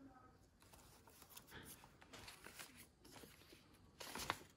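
Faint rustling and crinkling of paper as a folded sheet of writing paper is handled and opened out, with a few louder crinkles near the end.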